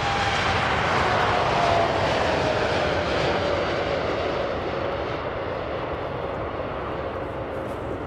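Boeing 747-8's four GEnx turbofan engines at takeoff thrust as the jumbo jet climbs out: a loud jet roar that peaks about two seconds in and then slowly fades, with an engine whine that falls gradually in pitch.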